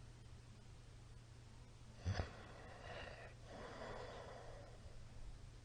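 A sleeping man snoring: quiet for about two seconds, then two quick loud snorts, followed by two longer noisy breaths.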